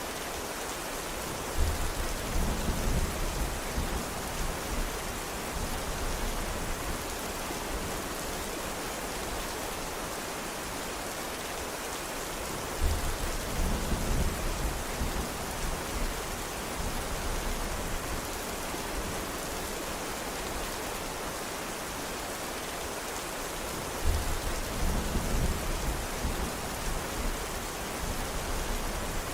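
Steady rain hissing, with a low rumble that starts sharply and fades over a few seconds, three times at even spacing.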